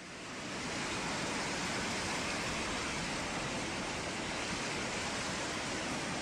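Rushing floodwater: a steady, noisy roar of fast-moving water that fades in over the first second and then holds even.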